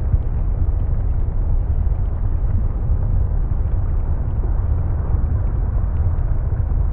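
Dark, murky ambience sound effect: a steady deep rumble with a fainter hiss above it, unchanging throughout.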